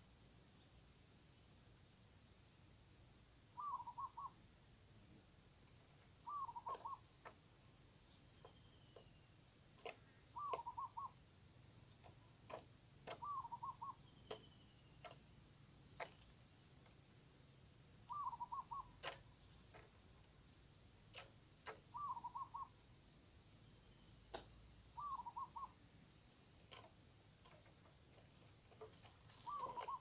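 Short multi-note quail call repeated about every three seconds, from a decoy quail used to lure wild quail, over a steady high-pitched insect drone and a pulsing cricket chirr. A few faint clicks in between.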